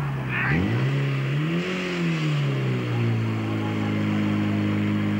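Portable fire pump's engine revving up, its pitch climbing and falling over a couple of seconds before it settles at a steady high speed, pumping water out to the hose lines.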